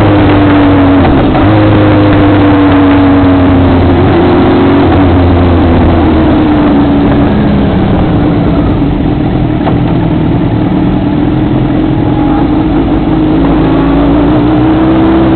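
Vehicle engine slowing from track speed into the pit lane: its pitch falls over the first few seconds, then it runs low and fairly steady at low speed, rising slightly near the end, over a steady rush of wind and road noise.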